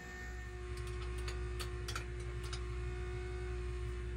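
Light, irregular metal clicks and ticks of tools and small parts being handled on a diesel engine's top end, over a steady low electrical hum.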